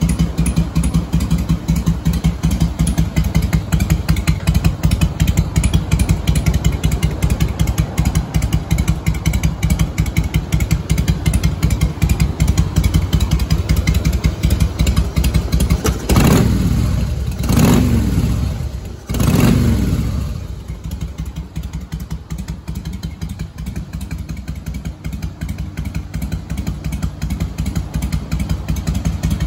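A 2003 Harley-Davidson Fat Boy's Twin Cam 88B V-twin idling through an aftermarket Motor Stage muffler, on a Mikuni HSR carburettor. About halfway through the throttle is blipped three times in quick succession, each rev falling back, and then the engine settles back to idle.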